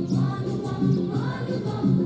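A group of students singing a song together.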